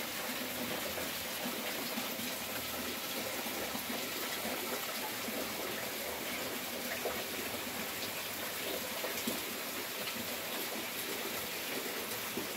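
Steady rain falling: an even hiss with a few faint drips.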